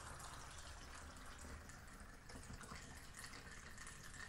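Water pouring in a thin, steady stream from a glass measuring jug through a plastic funnel into a plastic bottle, a faint trickling splash.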